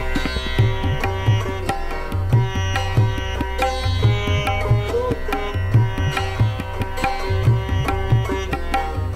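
Background music: a plucked string instrument over a steady drone, with low hand-drum beats at a regular pace.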